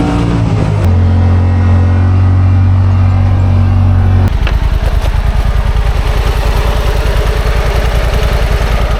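A vehicle engine running at a steady speed with a strong low hum. About four seconds in, the hum drops away and the engine settles into a rapid, even low pulsing, like an idle.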